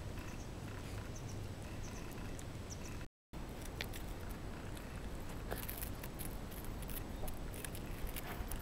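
Shiba Inu puppy gnawing and nibbling a raw bitter melon (goya): small crunching clicks, coming thick from about halfway through. A split-second silent gap about three seconds in.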